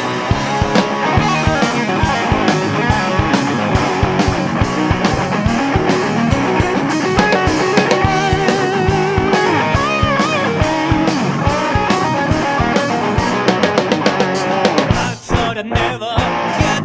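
Rock band playing an instrumental passage: guitars over a driving drum kit, with a lead line whose pitch wavers. The band drops out briefly about two seconds before the end.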